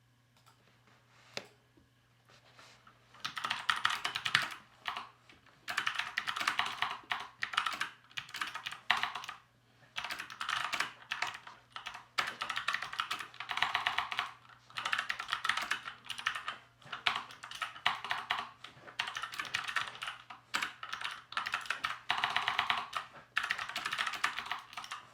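Keychron C2 mechanical keyboard being typed on, its hot-swapped NovelKeys Sherbet switches, some lubed and some unlubed, clacking. A few single keystrokes first, then fast runs of typing from about three seconds in, with short pauses between runs.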